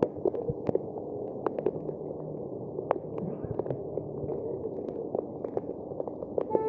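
Heavy rain: a steady wash with many sharp, irregular drops tapping close to the microphone.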